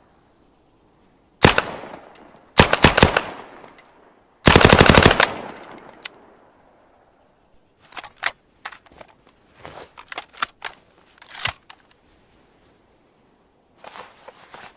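M1928A1 Thompson submachine gun, .45 ACP, firing three times: a very short burst, then a rapid burst of several shots, then a longer burst about four and a half seconds in. About three seconds later come scattered, much quieter sharp clicks and knocks, and a few more near the end.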